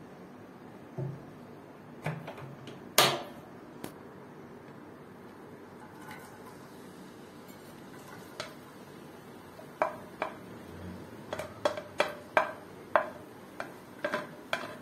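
Sharp clinks and taps of kitchenware against a flat non-stick pan, over a steady low hiss. A few knocks come in the first four seconds, the loudest about three seconds in, then a quick run of clinks in the last six seconds as chopped onion is tipped and scraped off a ceramic plate into the oiled pan.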